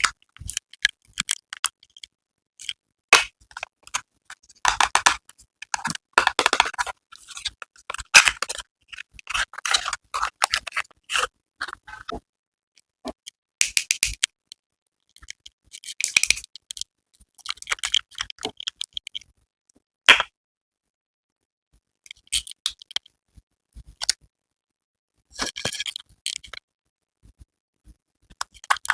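Hands handling skincare product packaging: irregular bouts of rustling, scraping and small clicks, broken by several silent pauses.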